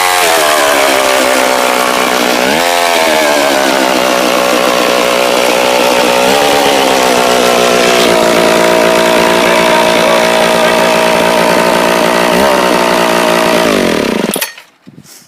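Homelite 3100G chainsaw's big 114 cc single-cylinder two-stroke engine running, briefly revved up three times. Near the end it winds down and stops.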